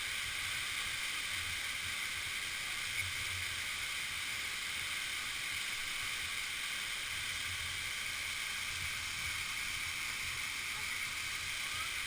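Steady rush of a waterfall: an even, unbroken hiss of falling water.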